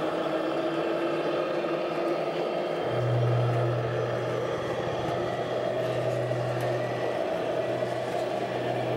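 Electronic sound module of a scale RC Scania truck playing a diesel engine note through its speaker as the truck drives by; the low, steady engine hum gets much louder about three seconds in.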